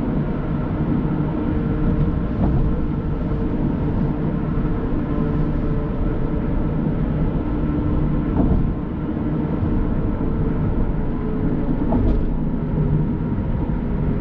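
Steady tyre and engine noise of a car cruising at freeway speed, with a few faint clicks.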